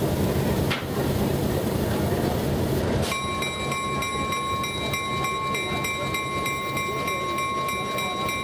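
EMD NW2 diesel switcher's V12 engine running as the locomotive rolls slowly past. About three seconds in the sound changes abruptly: it thins out, and steady high-pitched tones come in.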